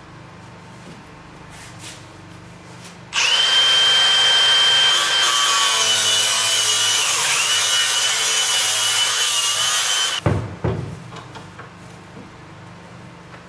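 Power tool switched on about three seconds in and run for about seven seconds with a steady high whine that dips once midway, then stopped suddenly, followed by a low clunk.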